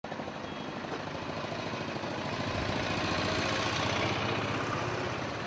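A motor running with a fast rattle, cutting in abruptly and growing louder over the first three seconds.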